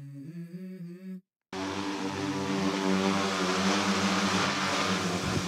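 Large multi-rotor crop-spraying drone flying low, its rotors giving a loud, steady hum over a rush of air. It starts suddenly about a second and a half in, after a short bit of guitar music cuts off.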